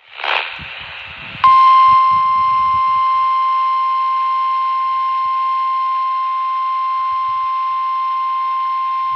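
NOAA Weather Radio warning alarm tone, a steady 1050 Hz tone with overtones, sounded as part of the required weekly test. It starts about a second and a half in, after a moment of radio hiss, and holds unbroken.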